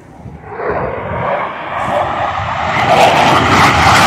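Jet engines of military fighter jets flying past low. The noise builds steadily from about half a second in and is loud by the end.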